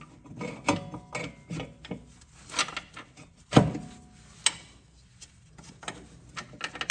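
Scattered metallic clicks and knocks as a steel bolt and a new adjustable rear camber arm are worked by hand into line at the arm's upper mount, with a sharper knock about three and a half seconds in and another about a second later.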